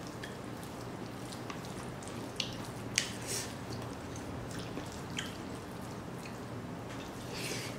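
Close-up eating sounds from someone eating dry pork and rice by hand: wet clicks and squishes of chewing and of fingers working through the food. A few sharp clicks stand out, the loudest about three seconds in.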